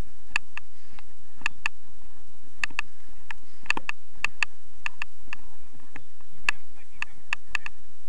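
Footsteps on dry, frozen snow making short sharp irregular crackling squeaks, about twenty in all and bunched most thickly in the middle, over a steady background noise.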